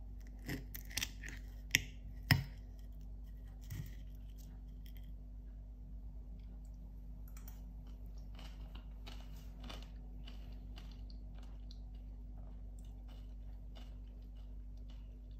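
Knife and fork cutting through a yogurt-filled peach on a plate, the metal clinking sharply against the plate four times in the first couple of seconds and once more near four seconds in. Faint scattered ticks and crackles follow.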